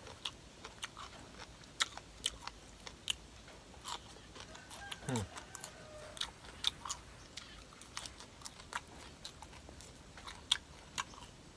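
A person eating: chewing and crunching food with many short, irregular mouth clicks. A brief falling murmur from the eater comes about five seconds in.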